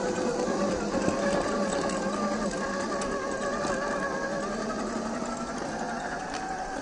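Scale RC crawler's brushed 550-size 21-turn electric motor and gear train whining steadily as it climbs a dirt trail, the pitch wavering slightly with throttle. A few faint clicks and crackles come from the tyres over dry leaves and twigs.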